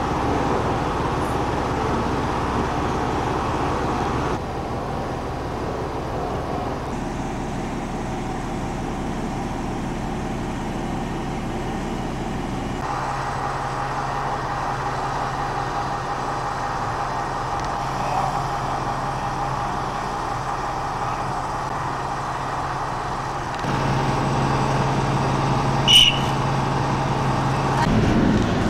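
DR class 771 diesel railbus idling at a standstill, a steady engine hum that shifts abruptly in tone a few times. A short high-pitched whistle sounds once near the end.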